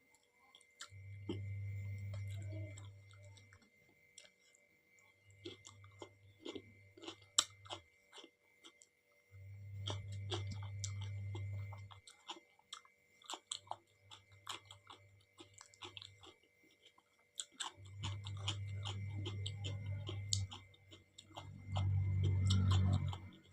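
Close-miked chewing of soft dal and rice, with many small wet mouth clicks and smacks. A low hum swells in and out every few seconds.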